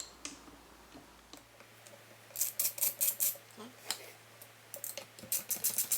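Light metallic clicks and scrapes of a small 4.5 mm hand tool being fitted to and worked on bolts inside a Mazzer Mini coffee grinder: a quick run of clicks about two and a half seconds in, a few single ones, then another cluster near the end.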